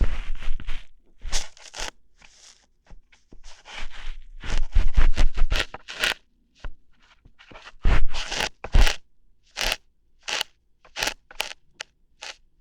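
Close-miked ASMR ear-hair plucking: crackling, scratchy tugs and snaps right at the ear, in dense runs at first and then as single sharp plucks about every half second to a second.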